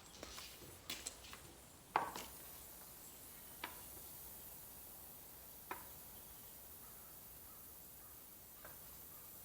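A few separate sharp knocks, irregularly spaced, the loudest about two seconds in, over a faint steady hiss.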